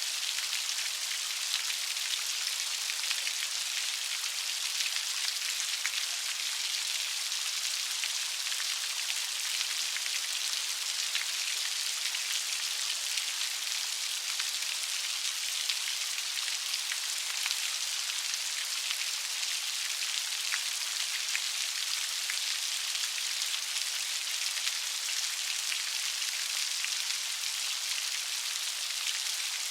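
Steady light rain pattering on a surface: an even hiss of many small, sharp drop ticks, unchanging throughout.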